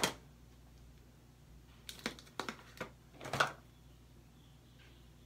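Light clicks and taps of makeup items and a brush being handled: one click at the start, a few sharp ticks around two seconds in, and a louder cluster a little after three seconds.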